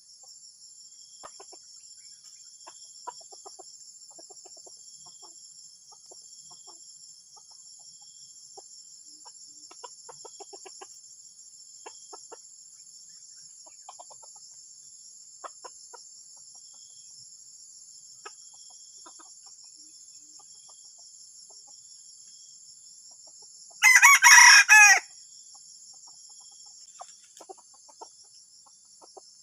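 Junglefowl giving faint scattered clucks, then one loud crow about a second long near the end: a provoking call of the kind used to lure wild junglefowl. A steady high-pitched buzz runs underneath.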